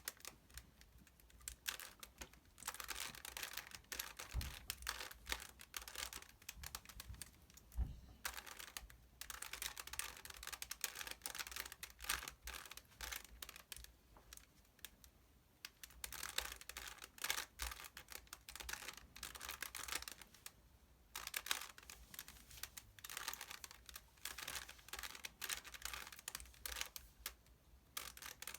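Rubik's Cube layers being twisted by hand: rapid plastic clicking and clacking in runs of several seconds, with short pauses between them.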